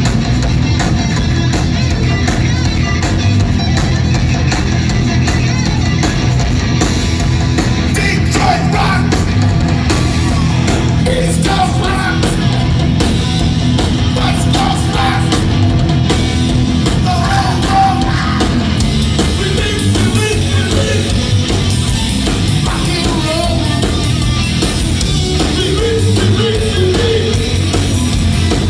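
Live punk rock band playing loud and fast on electric guitar, bass and drums, with shouted singing over it.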